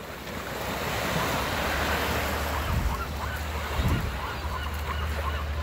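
Small waves breaking and washing up a sandy beach, with a flock of seagulls giving many short cries over the surf from about halfway through. Wind buffets the microphone with a couple of low thumps.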